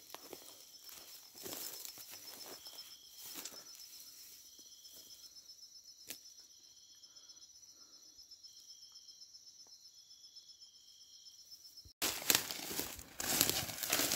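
Night insects chirping, a steady high pulsing trill with short repeated chirps over it, and faint rustling steps in dry grass in the first few seconds. About twelve seconds in, loud crackling and rustling of dry vegetation starts suddenly.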